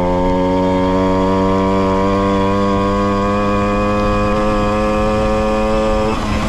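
Tomos moped's 49 cc two-stroke single running under throttle through a Tecno Bullet exhaust, its pitch climbing slowly and steadily as it picks up speed. The tone breaks up shortly before the end as the revs change.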